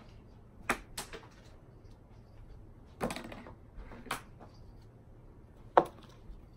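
Playing cards being thrown: a handful of sharp slaps and clicks at irregular intervals, the loudest near the end.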